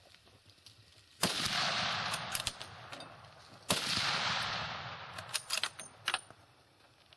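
.416 B&M big-bore rifle firing two shots about two and a half seconds apart, each crack followed by a long rolling echo that fades over about two seconds. A few short sharp clicks come between and after the shots.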